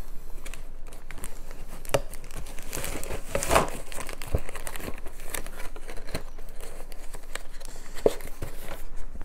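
Plastic packaging crinkling and rustling as a miniatures game box and its contents are handled, with many small clicks and a few louder knocks about 2, 3.5 and 8 seconds in.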